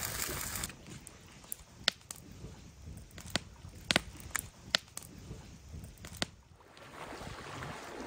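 Wood campfire crackling under a grill: a run of sharp, separate pops over a low rumble. Near the end a rising rush of noise comes in.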